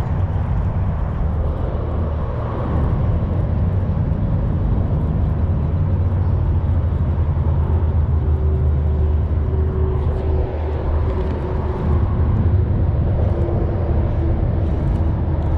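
Steady wind buffeting the microphone: a loud, constant low rumble with no break.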